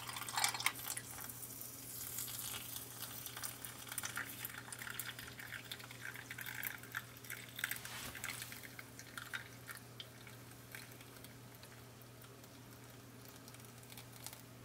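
A thin stream of water poured into a glass mug packed with loose dried leaves, splashing as it fills. Loudest at the start, it thins to a faint trickle over the last few seconds.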